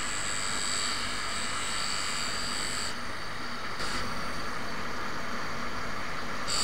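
Electric polishing motor spinning a soft cloth mop while a chrome-plated golf iron head is pressed against it with fine compound to polish off chrome burn: a steady hiss under a high whine, which weakens about three seconds in.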